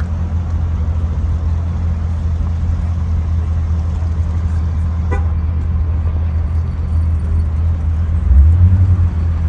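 Wind buffeting the phone's microphone outdoors, a steady low rumble with a stronger gust near the end.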